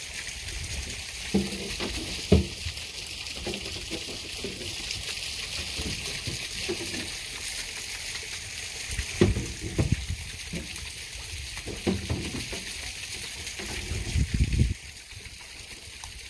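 Steady hiss of running, splashing water, with a few scattered dull knocks and thumps.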